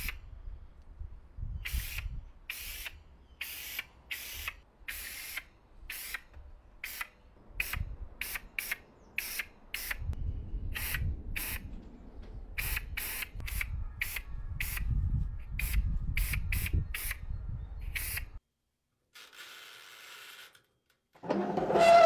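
A spray nozzle giving a series of short hissing bursts, about one or two a second, over a low rumble. Near the end comes a sudden loud clatter.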